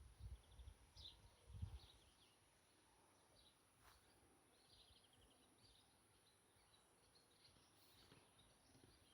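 Faint birdsong: scattered short chirps and trills over near silence, with a few low thumps in the first two seconds.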